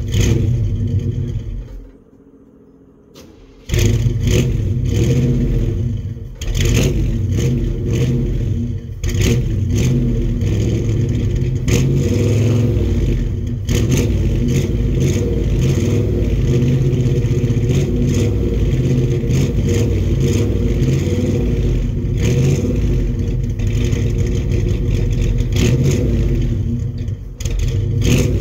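Cold start of a 1978 pickup truck's engine: it fires and runs briefly, then dies away. About four seconds in it catches again and keeps running loud, surging and dipping at first before it settles into a steadier run.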